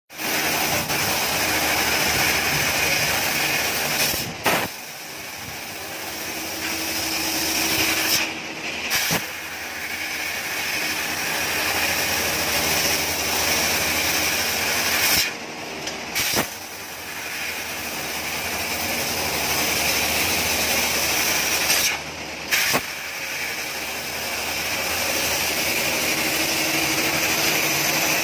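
Fiber laser CNC cutting machine cutting metal: a loud, steady hiss of assist gas through the cutting head, over a faint machine hum. The hiss breaks off briefly about four times between cuts.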